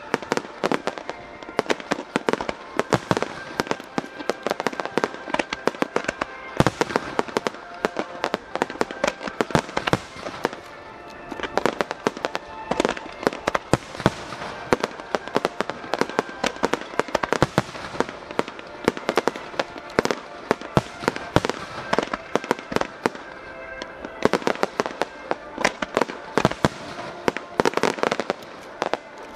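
Fireworks display going off in rapid succession: a dense, continuous barrage of sharp bangs and crackling reports, many a second, with music playing underneath.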